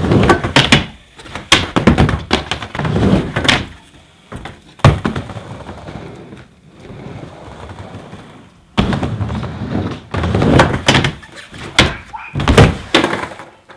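Skateboard riding a miniramp: wheels rolling over the ramp with repeated sharp clacks and thuds as the board and trucks strike the coping and slap down on landing. It quietens for a few seconds midway, then starts again suddenly and loudly about nine seconds in.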